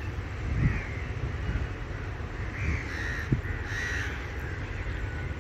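Crows cawing, several separate calls spread through the few seconds, over a steady low rumble.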